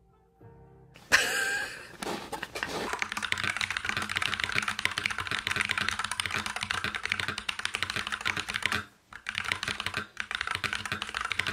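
Typing on a computer keyboard: rapid, continuous keystrokes that break off briefly about nine seconds in and then resume. The typing is set off by a short louder sound about a second in.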